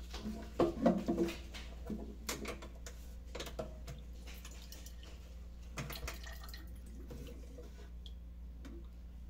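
Liquor pouring from a wall-mounted dispenser tap into a drinking glass, with a few short knocks of the glass and tap lever in the first seconds, over a steady low hum.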